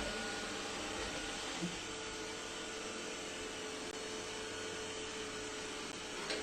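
Roborock E5 robot vacuum running with a steady whirring hum and a constant tone, with two small ticks, one about a second and a half in and one near the end.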